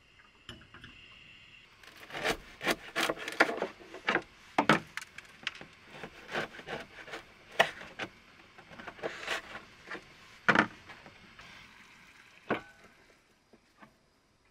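Crusty baguette being sliced with a knife on a wooden cutting board: irregular crunchy crackles of the crust breaking under the blade and sharp knocks of the knife on the board, starting about two seconds in and stopping near the end.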